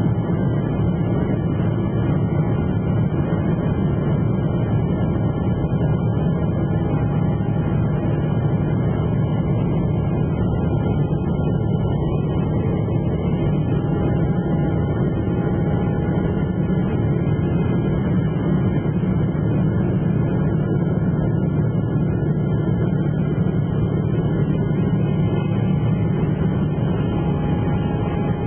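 Steady low rumble of an airliner's engines and airflow heard inside the cabin, holding constant with no rise or fall.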